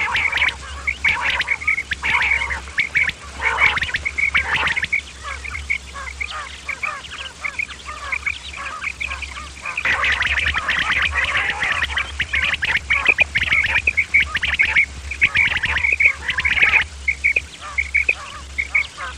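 Quail giving the rasping "kirak" call over and over in a fast, dense chatter of short notes, louder for several seconds past the middle, over a steady low hum.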